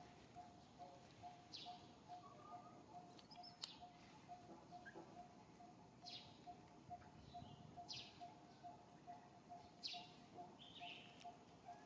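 Faint outdoor birdsong: one bird repeats a short low note steadily, about three times a second, while other birds give brief high chirps every couple of seconds.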